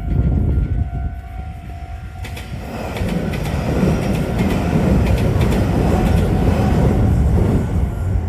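A Meitetsu Nagoya Main Line train passes over a level crossing with a loud, steady rumble and clattering wheel clicks, growing louder about three seconds in. The crossing's electronic warning bell rings steadily underneath and is drowned out by the train.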